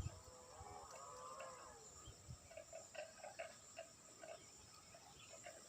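Faint animal calls: a drawn-out, wavering call lasting over a second, then a run of short repeated notes, about three a second.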